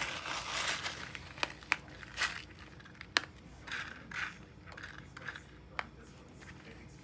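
Rummaging through spare laptop screws and small parts: scattered light clicks and bursts of rustling, with one sharper click about three seconds in.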